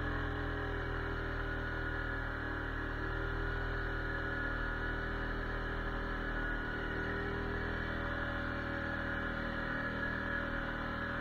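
ATV engine running at a steady pitch while the quad rides along.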